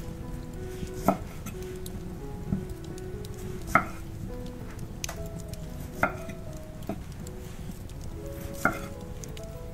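Chef's knife slicing through cherry tomatoes and knocking onto an end-grain wooden cutting board, about six sharp knocks at irregular intervals. Soft background music plays underneath.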